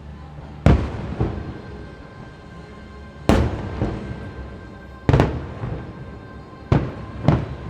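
Fireworks shells bursting in a series of sharp bangs, several in quick pairs, over faint music with held notes.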